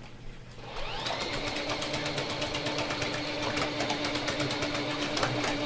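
Motorized drain-cleaning cable machine starting up about a second in, its motor rising to speed and then running steadily while the spinning cable clicks rapidly.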